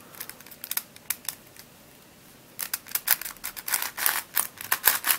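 Plastic clicking and clacking of an Octo Star twisty puzzle being turned by hand, with a short lull about two seconds in, then a quicker run of turns. The clicks come from layers that keep catching mid-turn, above all when turned clockwise.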